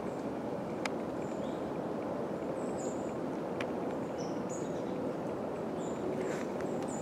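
Outdoor ambience: a steady rushing noise with short, high bird chirps scattered throughout, and a few sharp clicks.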